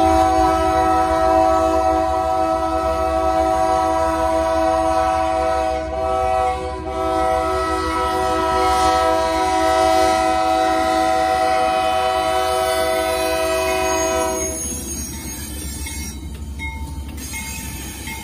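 Union Pacific GE C44ACM diesel locomotive sounding its multi-chime air horn for a grade crossing: one chord held for about fourteen seconds with a short dip about six seconds in, then cut off. After that only the low rumble of the locomotive and train rolling past close by remains.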